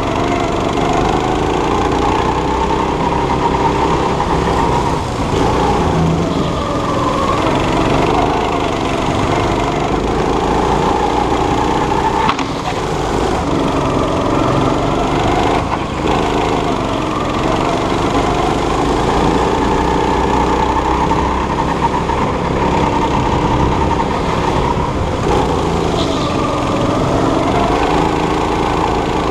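Go-kart's small petrol engine running hard through a lap, its pitch rising and falling over and over as the kart speeds up and slows for corners. Two brief knocks sound a little before and a little after the middle.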